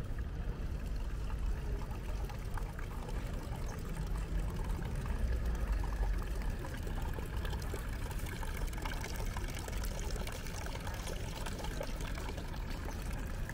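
Running water pouring steadily.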